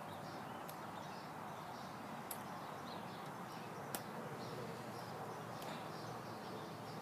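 A small knife blade nicking a thin woody bonsai branch, giving four sharp clicks about a second and a half apart. Birds chirp faintly in the background.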